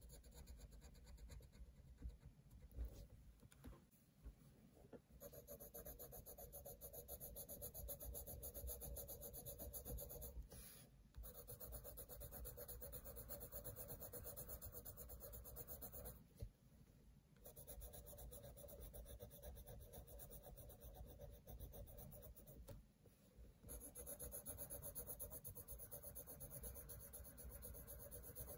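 Coloured pencil shading on sketchbook paper: quick, scratchy back-and-forth strokes in runs, broken by short pauses about three times.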